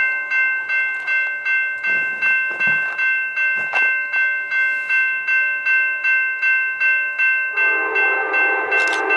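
Railroad grade-crossing bell ringing steadily, about three strikes a second. About three-quarters of the way through, a locomotive horn starts blowing over it and is still sounding at the end.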